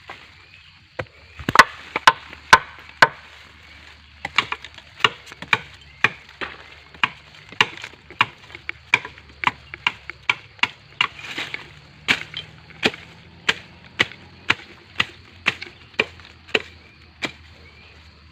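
A blade chopping repeatedly into a gombong bamboo stem: sharp strikes at about two a second, with a brief pause about three seconds in. The loudest strikes come in the first few seconds.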